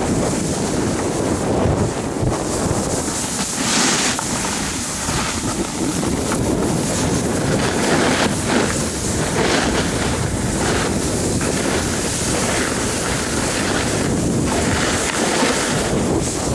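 Wind buffeting the microphone of a camera carried while skiing downhill, a loud steady rush. Through it come repeated swishes of skis scraping over the snow, the strongest about four seconds in and again near the end.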